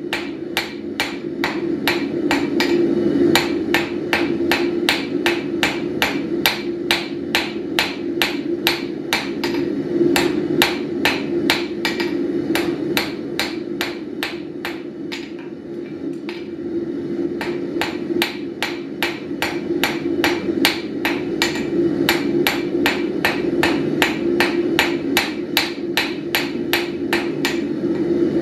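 Hand hammer forging a glowing-hot steel rod on an anvil: fast, even blows, about three a second, each with a sharp ring, and a short pause about halfway through. A steady low drone sounds underneath.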